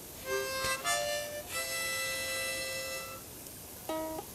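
Harmonica playing: a few short chords, then one held for about a second and a half, a brief pause, and a short chord near the end.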